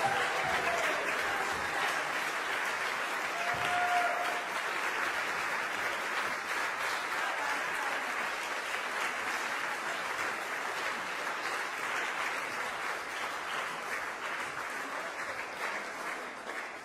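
Audience applauding, with a short cheer about three and a half seconds in. The clapping slowly thins out toward the end.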